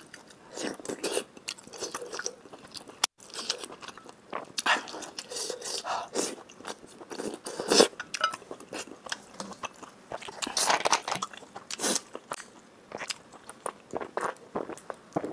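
A person eating close to the microphone: irregular biting and chewing, with sharp mouth clicks and short wet bursts of noise.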